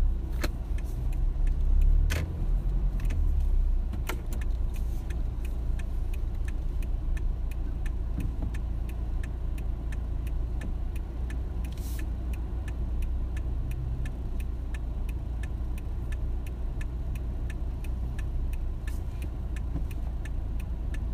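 Steady low rumble of a car cabin while the car creeps along in slow traffic, with an even light ticking about three times a second.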